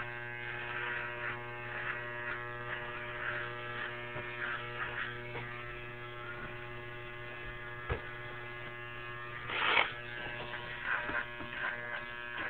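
Electric shaver running steadily with an even buzzing hum, with a short click about eight seconds in and a brief louder burst about ten seconds in.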